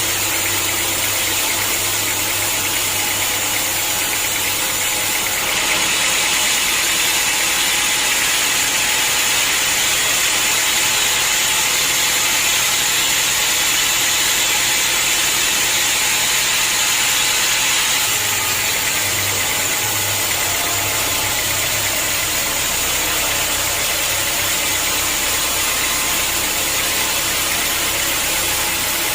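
Sawmill saw and its motor running steadily, with a brighter, slightly louder hiss from about six to eighteen seconds in, as when the blade is cutting through a log.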